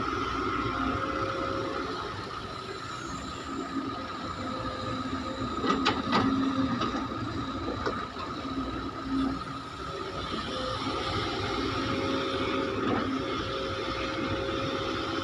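CASE excavator's diesel engine running steadily under a constant hydraulic whine, with a few sharp knocks about six seconds in.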